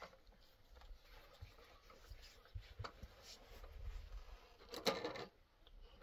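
Faint rubbing and scratching of fabric being handled, over a low rumble, with a short louder sound about five seconds in.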